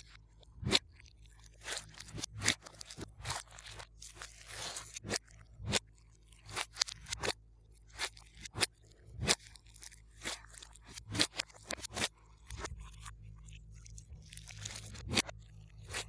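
Glossy slime being mixed by hand, giving irregular sharp clicks and pops about once a second, with stretches of softer crackling in between.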